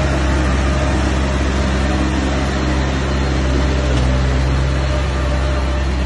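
Bulldozer's diesel engine running steadily with a deep hum, working at constant revs.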